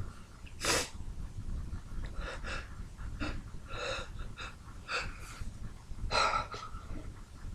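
A man's short, catching breaths and sniffs, about ten of them spread unevenly, the hitching inhales of a sneeze fit building toward the next sneeze.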